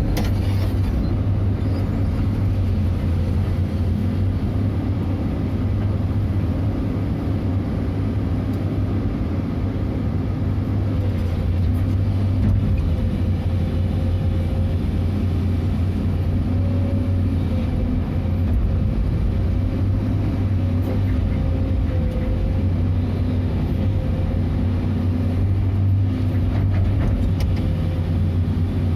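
Excavator's diesel engine running steadily with a constant low hum, heard from inside the operator's cab.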